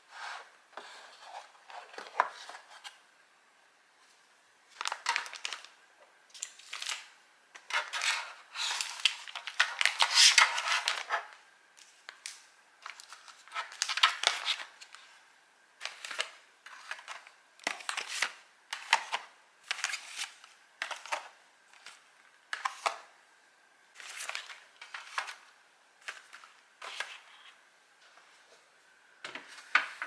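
Plastic food tubs and foil pouches being handled and set into clear acrylic storage trays: a run of separate clicks, taps and crinkling packaging rustles, busiest and loudest around the middle.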